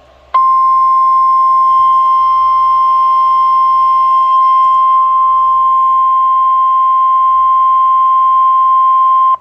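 NOAA Weather Radio 1050 Hz warning alarm tone: one loud, steady tone that starts a moment in, holds for about nine seconds and cuts off sharply. It signals that a warning broadcast follows.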